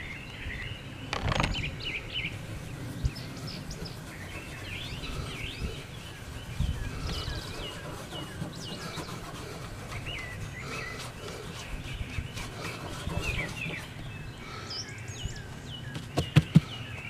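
Small birds chirping and singing in quick short notes, with a sharp knock about a second in and two louder sharp knocks near the end.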